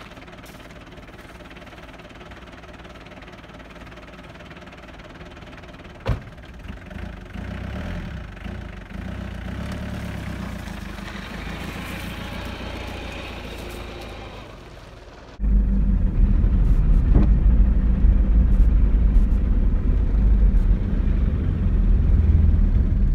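Old diesel 4WD ute engine idling just after a start following months of sitting, with a single sharp knock about six seconds in. After about fifteen seconds it turns suddenly much louder and deeper, heard from inside the cab as the engine runs.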